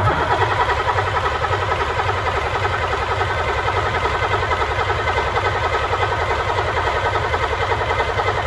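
MAN D0826 six-cylinder diesel turned over steadily on its starter motor without fuel, a fast even cranking rhythm that never catches: oil is being pumped through the freshly overhauled engine to build pressure before its first start.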